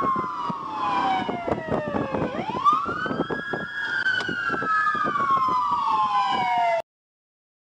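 Police car siren on wail, sliding slowly down in pitch, sweeping sharply back up a little over two seconds in, then falling again, over the cruiser's road noise. There is a short sharp knock just after the upsweep. The sound cuts off suddenly near the end.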